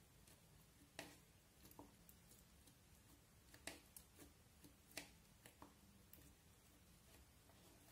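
Faint, irregular sticky clicks and crackles from a plastic spoon pressing and stirring clear slime into coloured slime and crushed makeup powder, over near silence.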